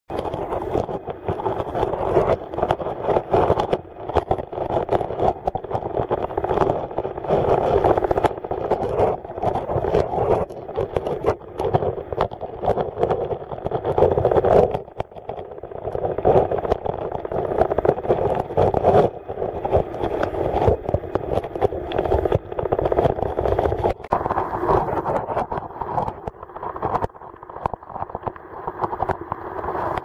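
Muffled rush and churn of a stream's flowing water heard underwater through a camera's waterproof housing, with scattered small clicks and knocks.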